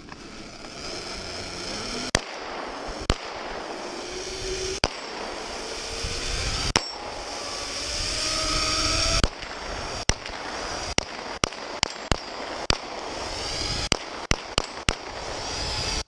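Gunshots: single spaced shots at first, then quicker shots from about ten seconds in. Under them runs the steady rushing of a zipline trolley on its cable, growing louder as it gathers speed and dropping off after about nine seconds.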